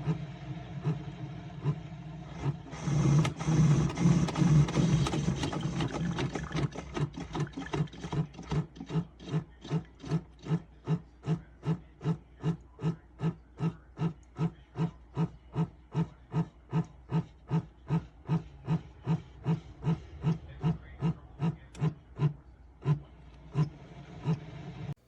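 Single-serve pod coffee brewer running its water pump and brewing, with a steady low hum. A louder hissing rush comes about two and a half seconds in, then a rapid even pulsing of about two to three beats a second that fades toward the end and stops abruptly.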